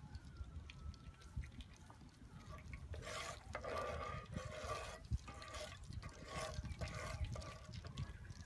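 Cooking oil heating in a frying pan on a portable gas stove, crackling and spitting as a spatula is moved through it, louder for a few seconds in the middle, over a low rumble.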